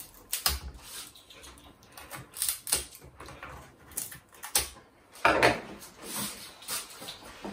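Irregular clicks and knocks of a knife working off the tough stem of a red kuri squash on a glass cutting board, with a louder, longer clatter about five seconds in.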